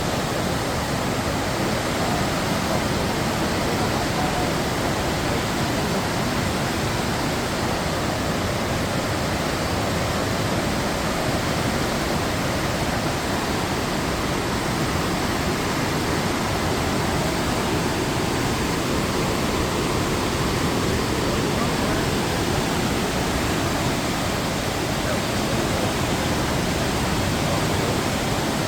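Rushing floodwater: a steady, loud wash of fast-moving water that keeps an even level throughout.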